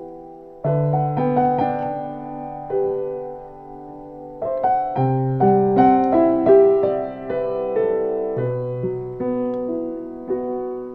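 Improvised solo keyboard music with a piano sound: slow chords and single melody notes over low bass notes, each struck and left to ring and fade.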